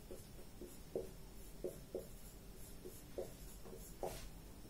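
Marker writing on a whiteboard: a series of short, faint strokes and taps of the tip as numbers and lines are drawn, irregularly spaced.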